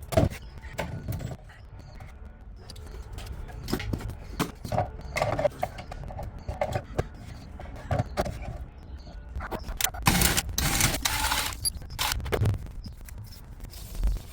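Tools and hardware being handled during plumbing work: a run of irregular clinks, knocks and scrapes, with a harsher burst of noise lasting about a second and a half, starting about ten seconds in.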